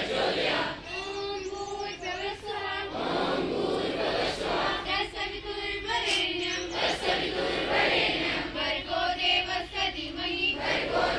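Large group of school students singing a prayer together in unison.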